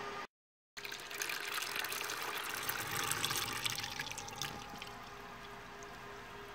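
A thin stream of water draining out of a hydroponic reservoir's drain hole and splashing into a plastic bucket, trickling steadily. It is the old nutrient solution being emptied before a nutrient change. The sound starts about a second in after a short dropout, is strongest in the middle, and eases a little near the end.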